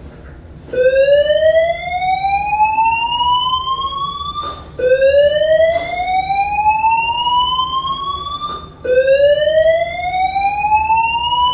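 Fire alarm voice-evacuation system sounding its slow-whoop tone: a buzzy tone that rises steadily for about four seconds, drops back low and rises again, three sweeps in all.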